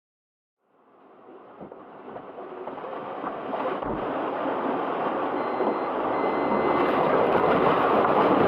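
A steady rushing noise fades in and keeps growing louder, with a faint steady high tone joining about halfway through.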